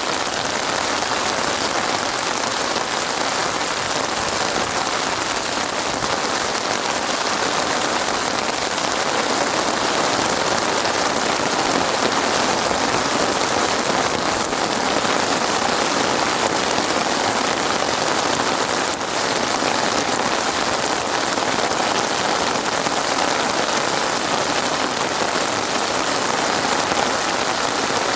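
Steady rain falling on a surface, an even hiss of many drops that holds constant throughout.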